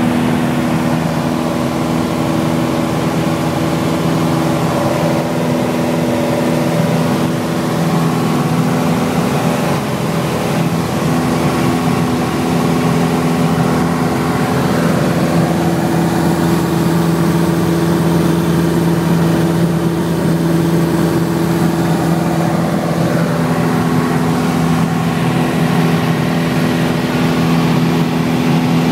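Cabin noise of a small propeller airplane in flight: its piston engine and propeller drone steadily, heard from inside the cockpit.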